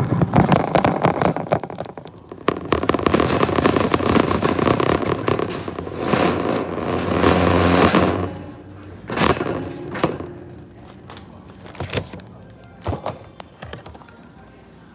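Wire shopping cart rattling and clattering as it is pushed across a hard store floor, with plastic bags rustling close to the microphone. The clatter is steady for about eight seconds, then a few sharp knocks come as the cart slows and turns.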